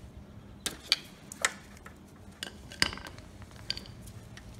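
Light metal clicks and clinks, about six spread over a few seconds, from a hand tool working the fuel hose off a small dirt-bike carburetor.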